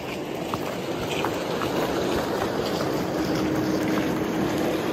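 Plastic ice-fishing sleds dragged over bare lake ice: a steady scraping hiss with small scattered ticks, and a faint steady hum coming in about halfway through.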